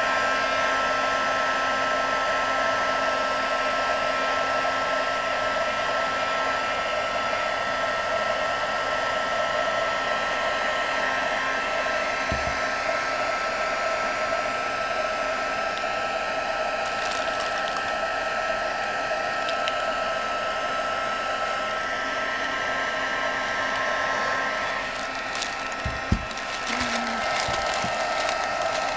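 Handheld craft heat gun running steadily: a fan whine over the rush of hot air, melting the candle's wax so the tissue-paper image sinks into it through the wax paper. Near the end a few light clicks and a knock.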